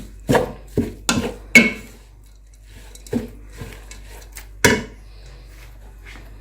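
Kitchen utensil clinking and knocking against a dish: four sharp clinks in the first two seconds, then two more spaced out.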